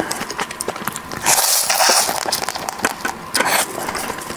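Close-miked eating sounds from a spicy sauced crab piece: a loud slurping suck a little over a second in, with many small crackling clicks throughout.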